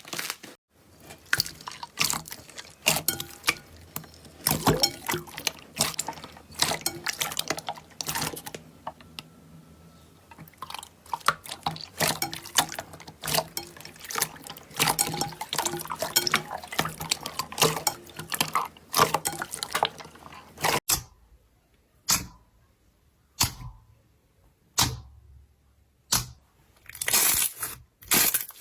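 Slime being squeezed and poked: wet squishing with many quick clicks and pops, close to the microphone. It is dense for most of the time; near the end it turns to a few separate squishes with short pauses between them.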